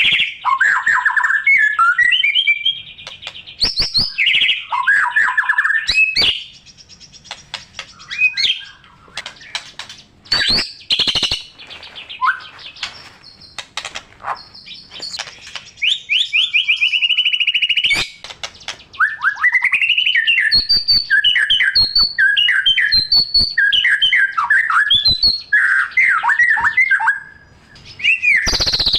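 White-rumped shama singing a long, varied song of loud whistled phrases, rising and falling notes, rapid rattling trills and sharp clicks, with short pauses between phrases.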